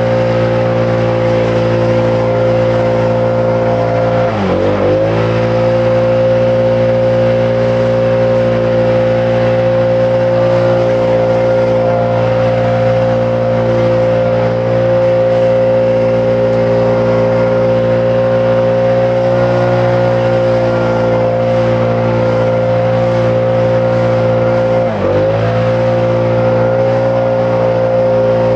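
Small engine of lawn power equipment running steadily at high throttle with a strong steady whine. It briefly drops in pitch and comes back up twice, once about four seconds in and again near the end.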